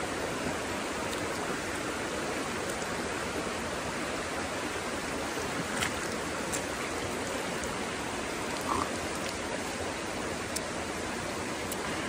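Steady rush of a shallow creek flowing over flat rock near a waterfall. A few small splashes come about halfway through as water is scooped up by hand.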